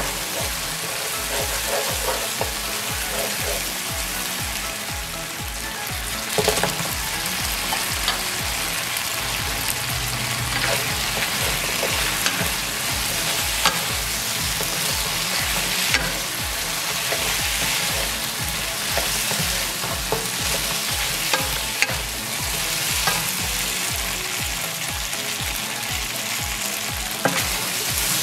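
Sweet and sour sauce and battered chicken wings sizzling in a nonstick frying pan while a wooden spatula stirs and tosses them, with a steady frying hiss and occasional sharp knocks against the pan.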